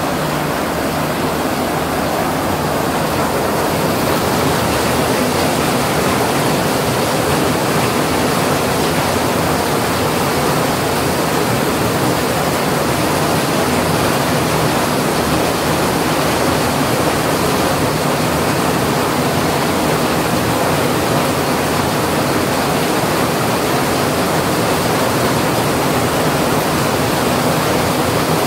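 Heavy rain pouring down, a dense, steady noise of a downpour.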